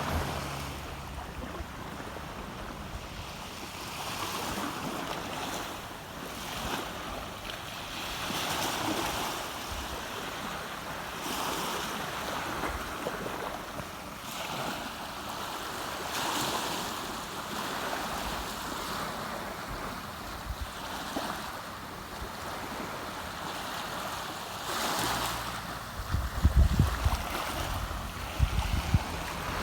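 Small sea waves washing onto a beach, swelling and ebbing every few seconds. Wind buffets the microphone with low rumbling gusts in the last few seconds.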